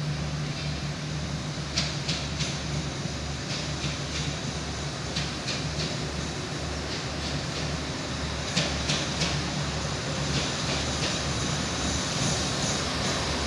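Diesel-electric locomotive approaching with a train: a steady low engine rumble with an even throb, and scattered clicks from the wheels and rails.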